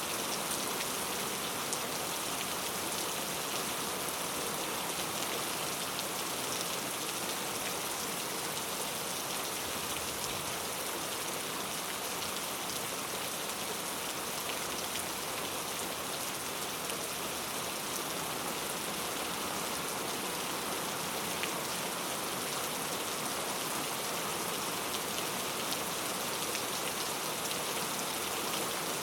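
Heavy rain falling steadily, a dense even hiss of drops on surfaces with fine individual drop ticks.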